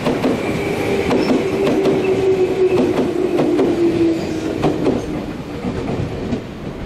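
Electric train moving past on the tracks, with wheels clacking over rail joints and a humming tone that drops slightly in pitch and fades about five seconds in.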